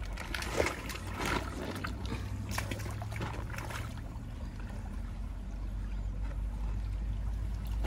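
Shallow stream water running over stones, with short splashes and rustles from a net being handled in the water, most of them in the first four seconds.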